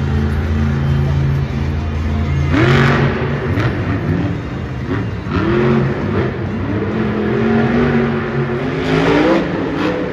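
Monster truck's supercharged big-block V8 running at a steady low idle, then from about two and a half seconds in revved hard again and again, its pitch climbing and dropping with each burst of throttle.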